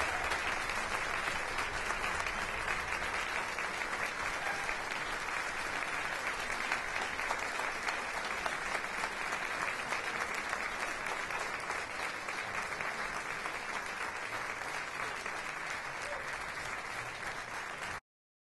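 Concert hall audience applauding steadily, tapering slightly, then cut off suddenly near the end.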